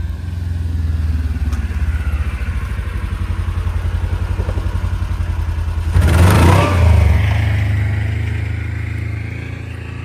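A vehicle's engine running close by as it drives over a pistol lying on the ground, with a louder surge about six seconds in as it rolls over and pulls away.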